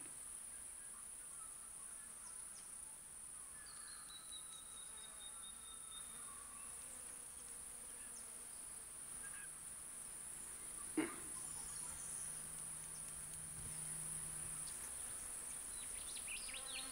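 Insects chirring in one steady high-pitched drone, with a single brief tap about eleven seconds in.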